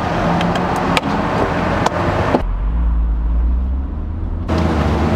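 Corvette's V8 engine running as the car pulls away, building up in level, with a heavier, deeper rumble for about two seconds in the middle.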